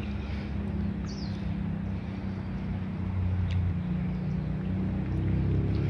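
Steady low engine hum of a motor vehicle running, a little louder in the second half, with a short high chirp about a second in.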